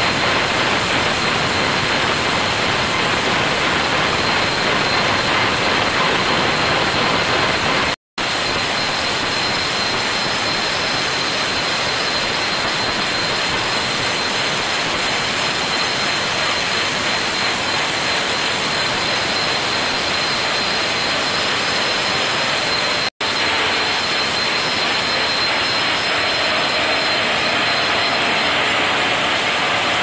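Large horizontal band sawmill running steadily, its wide hard-alloy-toothed band blade cutting through a big hardwood log: a loud, even noise with a thin high whine. The sound cuts out briefly twice.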